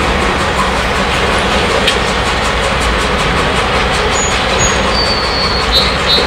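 A pair of EMD GP38-2 diesel locomotives running as they pull slowly forward, their two-stroke EMD 645 engines giving a loud, steady throb with a chuffing exhaust. The lead unit, 4707, is in poor shape and often smokes and chuffs like an old steam engine. A faint high squeal comes in near the end.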